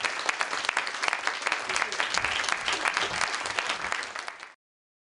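Audience applauding with dense, steady clapping that cuts off suddenly about four and a half seconds in.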